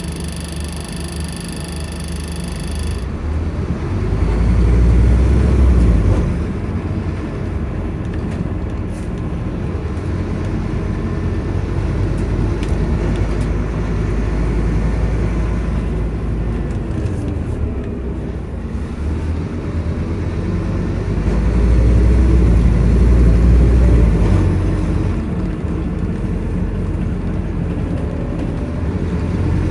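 Scania N230UD double-decker bus's diesel engine and road noise heard from inside the cabin while driving. The engine gets louder twice as the bus accelerates, about four seconds in and again about twenty-one seconds in.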